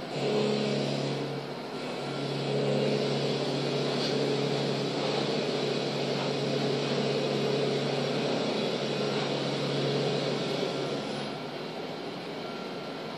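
BRAUN high-pressure billet grinding machine grinding a steel billet: a loud, steady grinding hiss over a motor hum as the wheel works along the bar. It starts sharply, dips for a moment after about a second and a half, then runs evenly until it eases off about two seconds before the end as the wheel comes off the billet.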